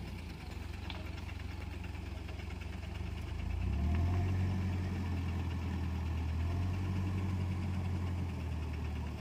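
Diesel engine of a wheel loader idling with a steady low rumble, which grows louder from about three and a half seconds in and eases back near the end.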